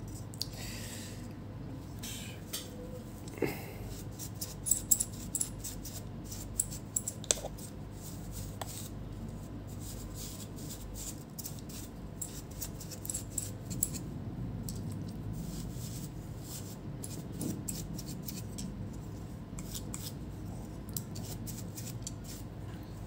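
Bristle brush sweeping dust off an Asus Zenbook UX303 laptop's cooling fan, with quick irregular clicks and ticks as the bristles flick the fan blades and plastic housing; the clicking is busiest in the first half.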